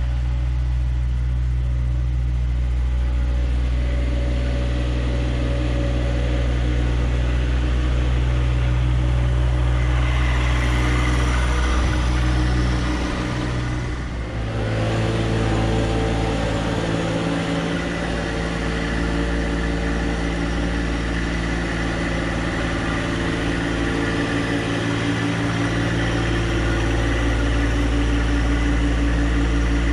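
John Deere 2025R compact tractor's three-cylinder diesel engine running steadily at working speed. The tone shifts about halfway through.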